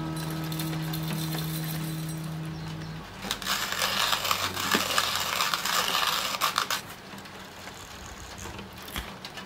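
A guitar chord rings and stops abruptly about three seconds in. A hand-cranked coffee grinder then crunches whole coffee beans in an irregular crackle for about three and a half seconds.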